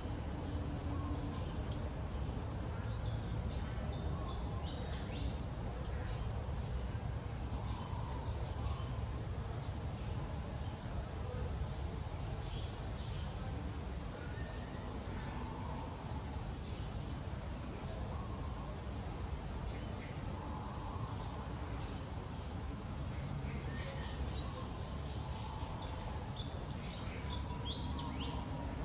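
Insects trilling in a steady, high-pitched drone that pulses in places, with a few short, falling high chirps now and then.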